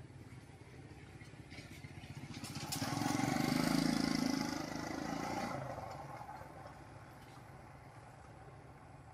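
A small motorbike's engine approaches and passes close by, loudest about four seconds in, then fades as it rides away.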